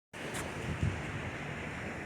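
Gulf surf washing on the beach with wind on the microphone, a steady rush of noise.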